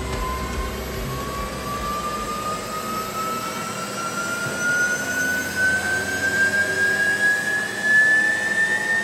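Porsche Taycan electric drive unit spinning up on an end-of-line test bench, a high whine rising steadily in pitch, with fainter whines climbing alongside. A low rumble fades out about three seconds in.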